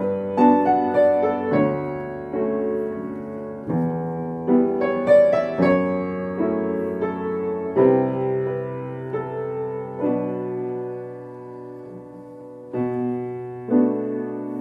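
Piano played in a slow piece: chords and notes struck about once a second, each left to ring and fade. Near the end one chord is held and dies away for nearly three seconds before the playing resumes.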